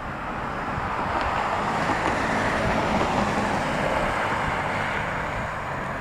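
A car passing on the road nearby, its tyre and engine noise swelling to a peak about halfway through and then fading.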